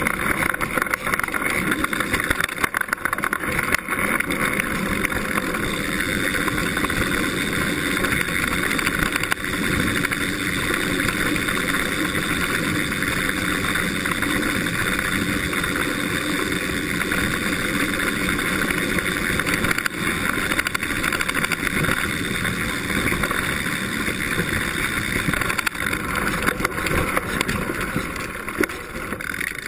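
Mountain bike riding down a dirt trail: a steady rush of tyres rolling over dirt and gravel, with constant small rattles and knocks from the bike.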